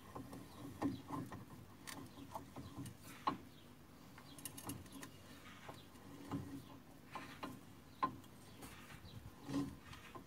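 Socket wrench on a long extension and universal joint tightening the nut of a threaded-rod puller that presses a Jeep Dana 30 upper control arm bushing out of its axle bracket. Faint scattered clicks and creaks, with a few sharper knocks about two, three and eight seconds in.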